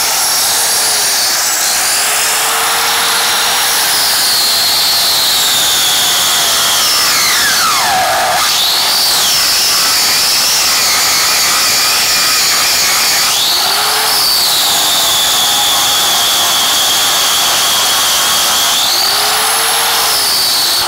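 Chicago Electric 4.5-inch angle grinder running at full speed and grinding steel, with sparks flying. Its high motor whine sags in pitch as it is pressed into the work, falling steeply to a labouring low about eight seconds in before spinning back up, and dips and recovers again later as the pressure changes.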